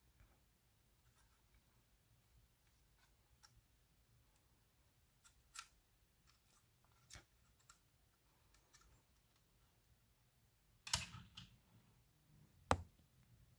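Sparse small plastic clicks and taps as an N scale model locomotive is handled over its plastic packaging tray, with a short cluster of louder knocks about eleven seconds in and one more sharp tap near the end.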